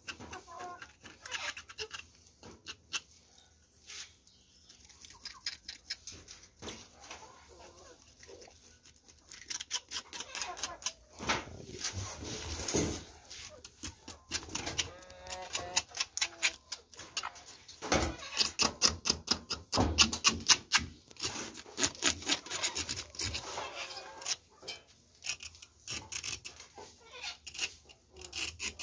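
A knife scraping the shell of a nine-banded armadillo to clean off its scales and dirt: a run of quick, scratchy rasping strokes. They are sparse and soft at first, then come thicker and louder from about a third of the way in.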